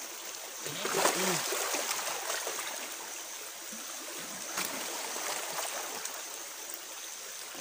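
Water splashing and trickling against the hull of a small wooden boat.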